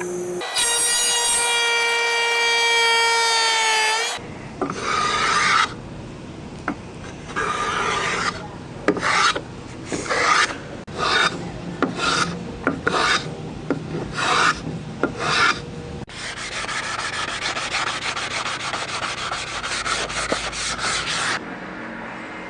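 A power saw whines steadily through wood for a few seconds. Then separate hand-tool scraping strokes on wood come about once a second, fairing the piece down, followed by several seconds of continuous scraping that stops suddenly.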